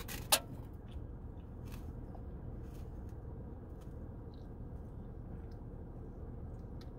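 Quiet sips and swallows as a person drinks from a soda can, over a steady low rumble. A single sharp click comes about a third of a second in.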